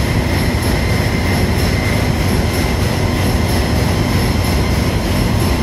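Steady, loud engine-room machinery noise: a constant low drone with a thin, steady high whine above it.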